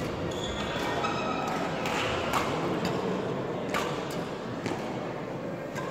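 Badminton hall ambience: scattered sharp racket-on-shuttlecock hits from play on the courts, with a brief squeak of a shoe on the court floor early on, all ringing in a large echoing hall.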